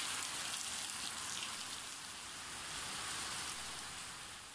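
Rain falling steadily on wet ground: an even hiss of many drops that eases off near the end.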